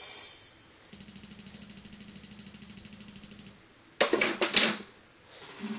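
Yamaha portable keyboard sounding notes as a dog paws and noses the keys: a held note fades out, then a steady note with a fast even pulse sounds for a couple of seconds. About four seconds in comes a loud clatter of claws and keys, and a short note sounds near the end.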